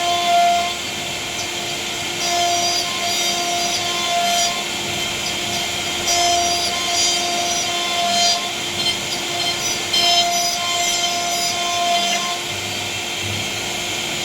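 CNC router spindle running steadily with a whine while its bit cuts a wooden panel. The higher part of the whine drops out and comes back every second or two as the cut goes on.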